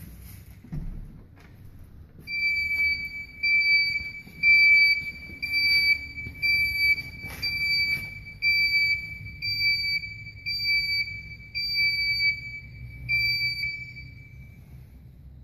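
Alarm beeper of a Multitek video intercom alarm panel sounding a steady series of short, high-pitched beeps, a little more than one a second, starting about two seconds in and stopping shortly before the end, while an alarm zone is armed. A few soft taps fall among the beeps.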